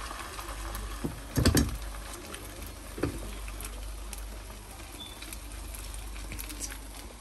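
A few knocks and small clicks, the loudest about one and a half seconds in and another near three seconds, over a steady low hum.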